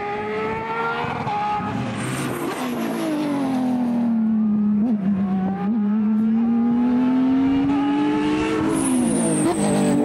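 Porsche 911 rally car's flat-six engine at full rally pace, its pitch climbing, falling as it lifts about two seconds in, holding fairly steady through the middle, then falling again near the end. A thin high squeal comes twice, each time as the revs drop.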